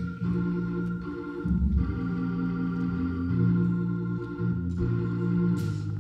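Organ playing slow, sustained chords over a low bass line, the chords changing every second or two, with a brief hiss near the end.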